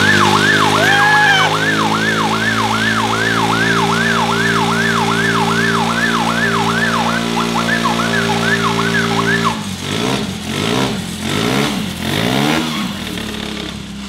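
A siren yelping, its pitch sweeping up and down about two and a half times a second. Under it a Honda Today's single-cylinder engine runs steadily at high revs, spinning its rear tyre in pool water. Both stop abruptly about nine and a half seconds in.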